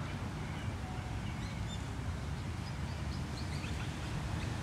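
City park ambience: a steady low rumble of traffic under scattered short bird chirps.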